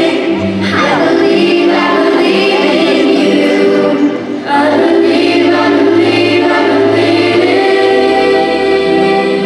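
Children's choir singing, with girls taking solo lines into handheld microphones over sustained accompaniment. The sound dips briefly about four seconds in.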